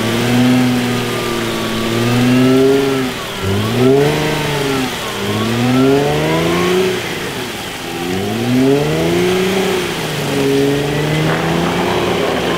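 Jeep Wrangler engine revving up and falling back again and again, as the Jeep tries to drive a wheel that has sunk into a deep, slippery mud rut back out.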